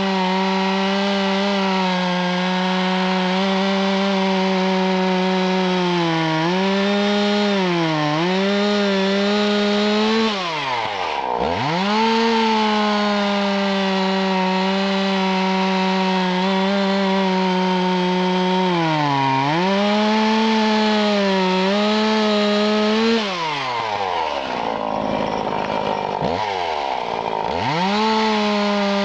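Husqvarna 340 two-stroke chainsaw running at full throttle as it cuts through log rounds, its pitch sagging briefly now and then as the chain loads up in the wood. The throttle is let off twice, about ten seconds in and again past twenty seconds, and the engine falls toward idle before revving back up.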